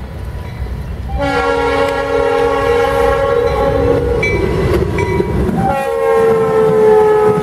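Freight locomotive's multi-chime air horn sounds two long blasts as the train passes close by. The second blast slides down in pitch as the lead unit goes by. Underneath runs the steady rumble of the diesel locomotives and wheels.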